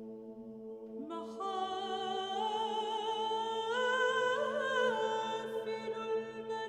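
Background music: a steady held drone, joined about a second in by a wavering melody line.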